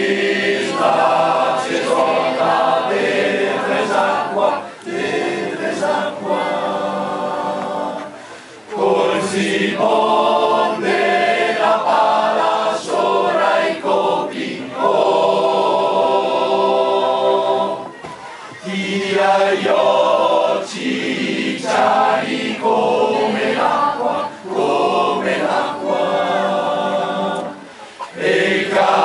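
A large mixed choir of men's and women's voices singing a cappella, phrase by phrase, with short breaks between phrases.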